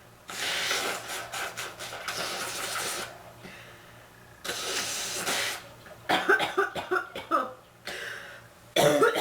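A woman with bronchitis blowing her nose hard twice, a long blow then a shorter one. Then she coughs in a quick run of several coughs about six seconds in, and once more near the end.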